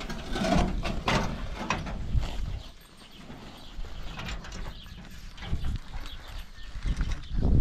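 Woven plastic tarp being shaken out and spread on the ground, rustling and crackling for the first two and a half seconds, then only faint handling.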